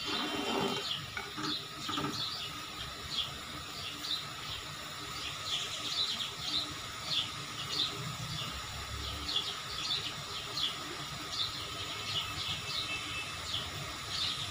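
Small birds chirping, short high chirps repeating irregularly about once or twice a second, over a steady background hiss.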